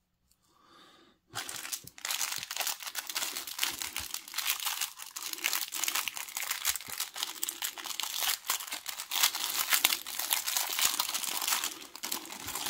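Clear plastic bag crinkling and crackling as it is handled and pulled open, starting about a second and a half in.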